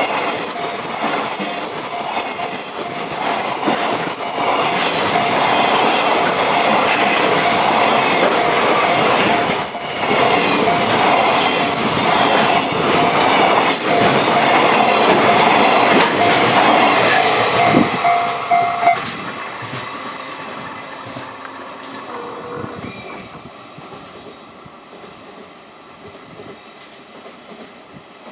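Container freight wagons rattling past over a level crossing, wheels clacking over the rail joints, with a steady ringing tone of the crossing's warning bell. The loudest part and the bell stop at about two-thirds through, as the last wagon clears the crossing, and the train's sound then fades away.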